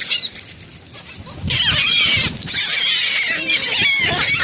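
A flock of gulls calling, many overlapping high cries. They come in as a dense clamour about a second and a half in, after a brief lull.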